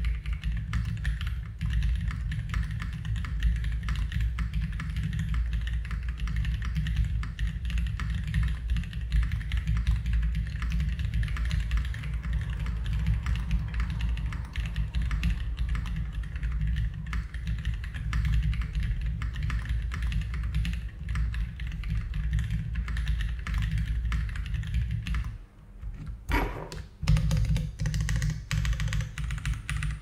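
Fast typing on a Rainy75 aluminium-case mechanical keyboard with its stock factory-lubed switches and doubleshot ABS keycaps, internal foams removed, giving a clacky sound. The typing pauses briefly near the end, then picks up again.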